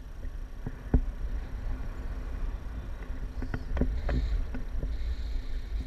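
Airflow buffeting the camera's microphone during a tandem paraglider flight: a steady low wind rumble. Several short knocks and clicks cut through it, one about a second in and a cluster in the second half.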